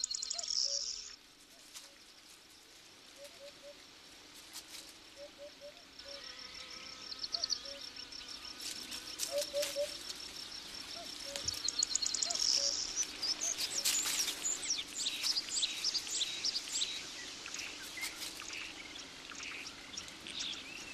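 Woodland ambience of birds calling and singing: low short hoots in twos and threes, and quick high chirps that grow denser over the second half. An insect buzzes briefly at the very start.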